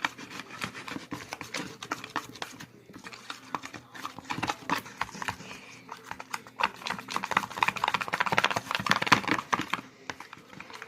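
Slime being kneaded and squished by hand, giving a dense run of wet clicks and pops that grow louder in the second half.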